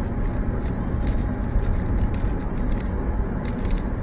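Steady road and engine noise of a car driving at speed, heard from inside the cabin, with light clicks now and then.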